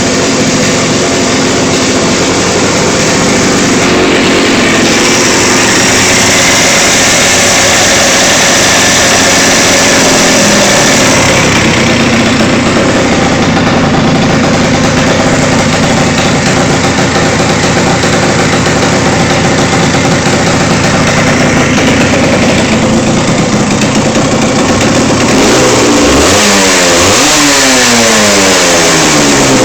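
Yamaha TZR125's two-stroke single-cylinder engine idling steadily, then revved in several quick throttle blips near the end, the pitch sweeping up and falling back each time.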